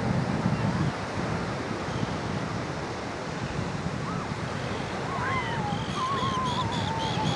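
Wind rumbling on the microphone over steady surf, with thin whistled bird calls that waver and fall in pitch joining from about halfway, and a quick run of repeated higher chattering notes near the end.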